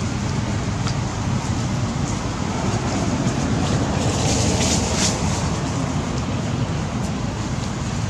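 Steady rumbling background noise, with a brief rise in hiss about halfway through.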